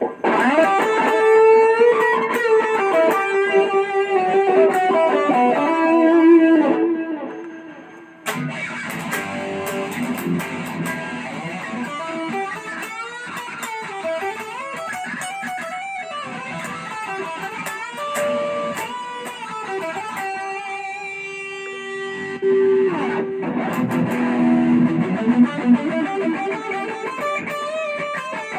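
Electric guitar played through a BOSS OD-20 Drive Zone overdrive pedal: a run of picked and held notes. The playing breaks off about seven seconds in and starts again a second or so later.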